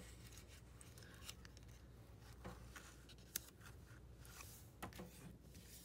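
Near silence with a low steady hum, broken by faint paper rustling and a few light clicks, as of a book being handled and its page turned.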